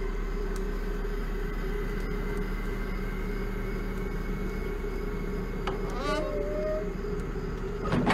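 A steady low ambient drone with faint held tones. About six seconds in comes a brief rising pitched sound that settles into a held tone, and near the end a sharp knock.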